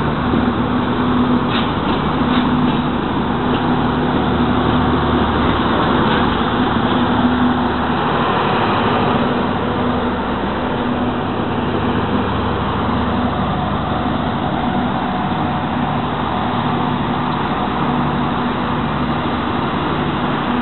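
Passenger coaches of a diesel-hauled express rolling past at speed, wheels clacking over rail joints in the first few seconds over a steady rumble. The end power car passes with its diesel generator running, and the rumble eases slightly as the train pulls away.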